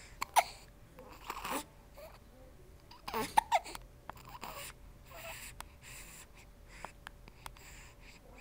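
Hiccups: a few short, sharp gulping sounds, the loudest under a second in and around three seconds in, with softer breathy sounds between.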